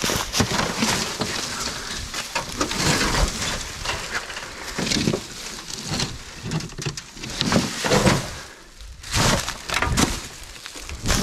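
Dry leaf litter crunching and rustling underfoot, mixed with irregular scrapes and knocks of corrugated tin sheets and old boards being lifted and handled with a snake hook.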